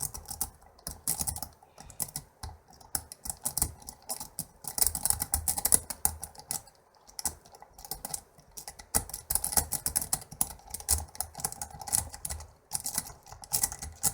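Metal W rake scrubbing in and out of a pin-tumbler lock under tension, the pins (serrated and spool pins) clicking and rattling rapidly in bursts with short pauses.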